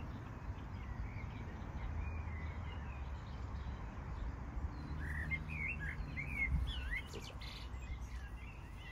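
Wild birds chirping and whistling, short calls that come thickest in the second half, over a steady low outdoor rumble.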